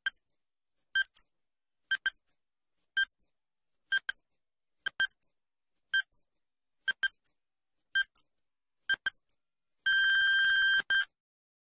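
Quiz countdown-timer sound effect: short electronic ticks, one a second, ten in all. A steady electronic beep about a second long near the end marks time up.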